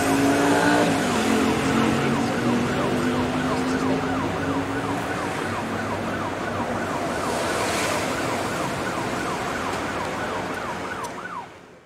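Vehicle siren wailing in a fast up-and-down yelp, about two sweeps a second, over a steady low hum; it fades out near the end.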